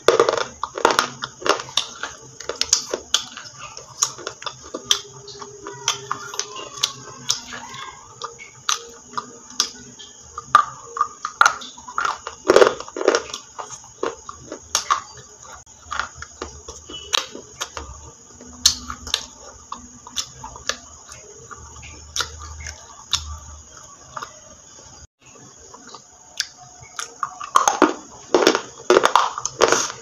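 A person biting and chewing something hard and crunchy close to the microphone: many sharp crunches and snaps, thickest at the start, in the middle and again near the end.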